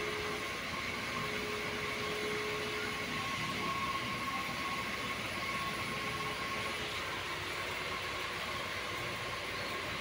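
A steady, even rushing noise with a few faint held tones running through it, the hum of something running without a break. It has no rhythm or clicks.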